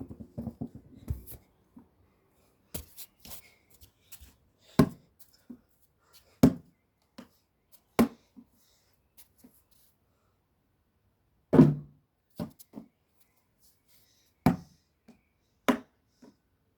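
A basketball bouncing with single hollow thuds at uneven gaps of one to three seconds, about ten in all. The loudest comes about two thirds of the way through.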